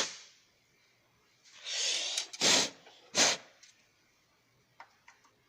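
Puffs of breath blown by mouth to clear dust from a computer RAM module: a sharp puff at the start, a longer hissing blow about one and a half seconds in, then two short, strong puffs less than a second apart.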